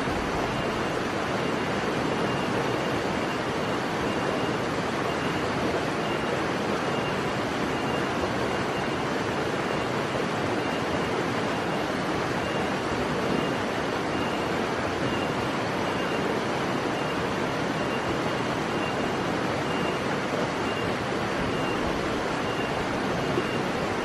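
Steady rushing noise, even and unchanging, with a faint high note repeating about every two-thirds of a second.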